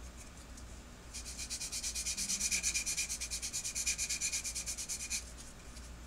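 Foam-backed Flory Models sanding stick rubbed rapidly back and forth over a plastic model part, an even, fast scratching. It starts about a second in and stops about a second before the end.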